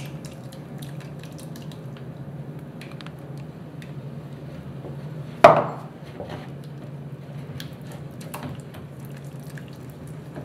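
A wooden spoon stirs thickening rhubarb kisel in a stainless steel pot, making small clicks and scrapes against the pot, over a low steady hum. One loud knock comes about five and a half seconds in. This is the stage where the diluted potato starch is being stirred in to set the kisel.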